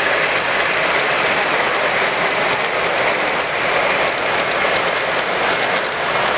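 Model train running on a layout: a steady rolling rattle of small wheels on track, with fine rapid clicking throughout.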